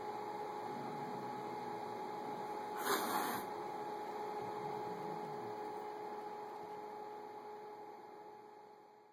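Steady household hum with two faint steady tones underneath. About three seconds in comes a short rush of noise lasting about half a second as two cats scuffle and break apart. The sound then slowly fades out near the end.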